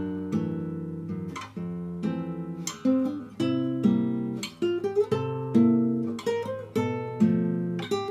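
Nylon-string classical guitar playing a slow, fingerpicked fado introduction: plucked chords and melody notes struck about once a second and left to ring, with a few quick slides between notes near the middle.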